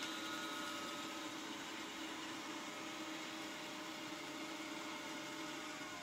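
Xiaomi Robot Vacuum S10 running, a steady whir of its suction fan and drive motors with a few faint whining tones in it, as the robot turns to back onto its charging dock. Near the end one tone falls in pitch.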